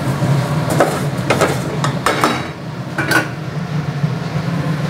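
A metal spoon stirring beef in an aluminium pot, clinking and scraping against the pot several times over a steady low hum.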